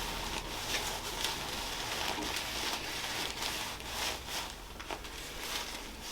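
Soft, irregular rubbing and rustling of hands and body against clothing and the padded treatment table during chiropractic hands-on work.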